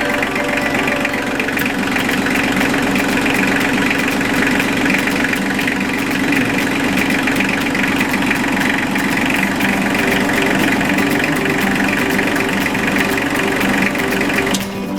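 ISEKI Sial Hunter 22 tractor's diesel engine running steadily at idle with its new water pump fitted. The engine noise drops away shortly before the end.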